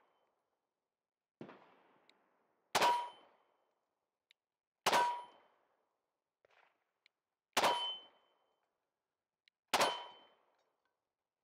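Four 9mm pistol shots from a Smith & Wesson Equalizer, about two seconds apart, each with the short metallic ring of a steel plate target being hit. Two fainter sharp cracks fall between them.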